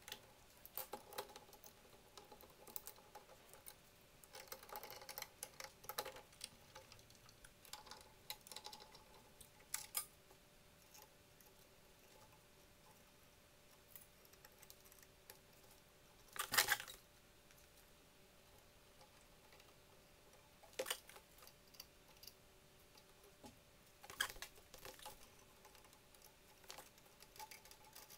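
Scattered light clicks and taps of metal parts being handled and fitted as a copper bypass tube and gas burner assembly go back onto an oven, with one louder knock about sixteen seconds in. A faint steady hum runs underneath.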